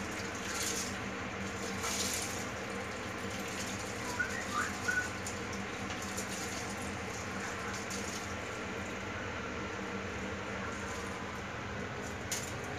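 Steady hiss of a gas burner under a pot of liquid on the boil, with a few soft knocks and scrapes as soaked rice is tipped and scraped from a steel bowl into the pot. A few short high chirps about four to five seconds in.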